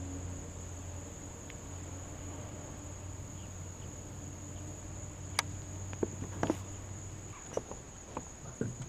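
Steady high-pitched insect chorus of crickets, with a low hum under it that fades out near the end. A few light, sharp clicks and knocks come in the second half.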